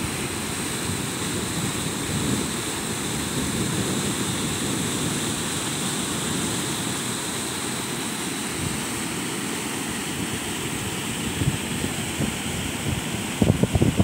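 Waterfall cascading down a rocky slope: a steady rush of falling water. Wind gusts hit the microphone near the end.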